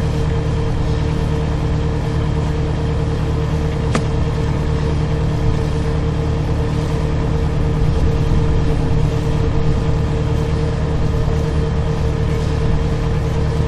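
A sewer jetter's engine runs steadily at a constant speed, with a single sharp click about four seconds in.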